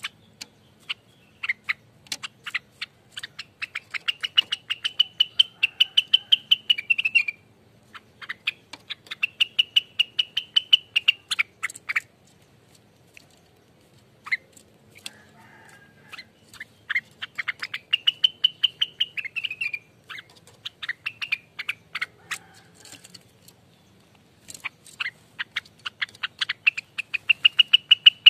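Rengganis bird singing in rapid-fire 'ropel' phrases: fast, even runs of sharp notes, each run lasting a few seconds, with short pauses between them.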